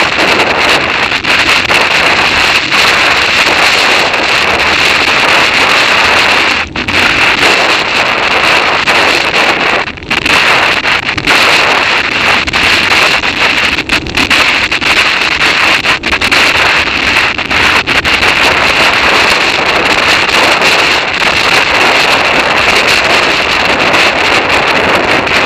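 Loud, steady wind rush buffeting the microphone of a camera on a bicycle coasting fast downhill, with a couple of brief lulls.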